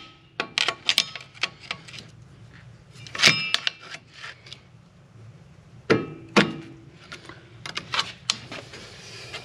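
Steel pry bar clinking and clanking against a 2017 Ram 2500's seized front wheel bearing hub as it is levered loose from the steering knuckle. The sound is a scattered series of sharp metallic knocks, the loudest ringing briefly about three and six seconds in.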